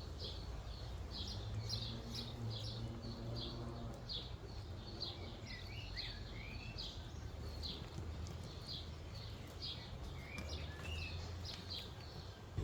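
Birds calling: one bird repeats a short high chirp about twice a second, while another gives a few sliding calls, over a low steady background noise.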